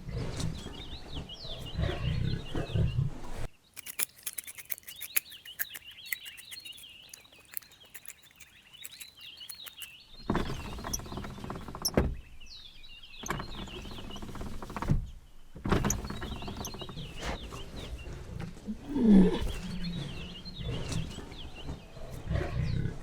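Small birds chirping continuously, over irregular low rustling and handling noise. A run of rapid clicks comes about four seconds in.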